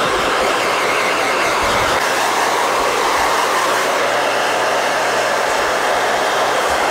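Handheld pet blow dryer running steadily, blowing air onto a cat's coat to dry it; the rush of air is loud and even.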